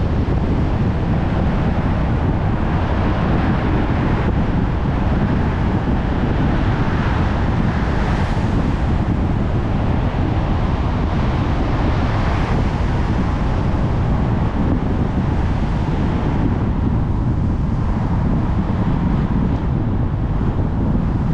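Steady road noise of a car driving on wet roads: a low rumble under tyre hiss, with the hiss swelling briefly a few times.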